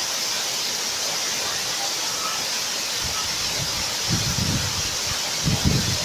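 Waterfall pouring onto rocks: a loud, steady rush of falling water. From about four seconds in, low gusts of wind buffet the microphone.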